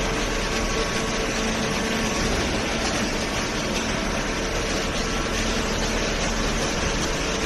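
High-speed cardboard (OCC) baler running: a steady mechanical rush with a constant hum, typical of the machine's hydraulic pump and motor.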